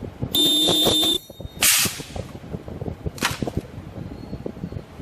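An ultrasonic welding machine runs a weld cycle on a PET box. A loud, steady high-pitched screech lasts about a second near the start and cuts off. Two short hisses follow, one soon after the screech and another near the middle, over a background of light mechanical clatter.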